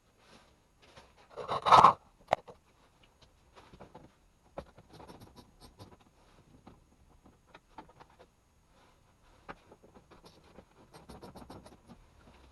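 Scraping, clicking and scratching of tools and parts being handled on a car's underbody. There is a loud scrape about two seconds in with a sharp click right after, then lighter scratches and taps, and a longer scratchy stretch near the end.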